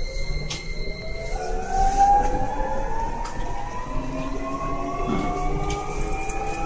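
Keio 1000 series (renewed car) VVVF inverter and traction motors accelerating from a stop: several whining tones climb steadily in pitch together. A high steady tone drops away about a second and a half in as the pitch climb takes over.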